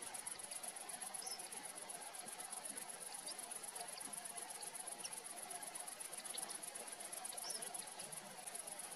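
Crickets chirping in a steady, rapid high-pitched trill, with a few faint short high chirps over it.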